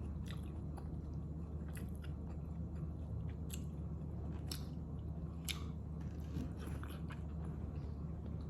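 A person chewing momo dumplings close to the microphone, with several sharp wet mouth clicks spread through the chewing.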